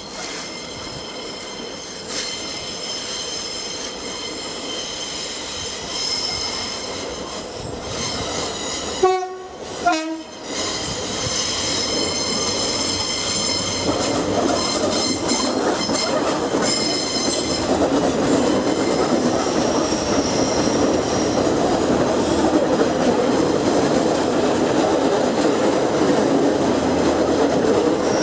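Class 142 Pacer diesel railcar sounding its two-tone horn about nine seconds in, a short higher note then a lower one. Its underfloor diesel engines and wheels on the rails then grow steadily louder as it approaches and passes close by.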